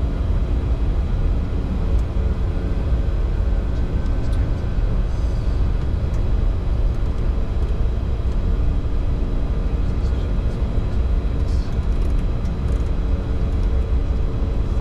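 Steady low rumble of a Bombardier Challenger 605 business jet in the climb, heard inside the cockpit, with faint steady hums over it.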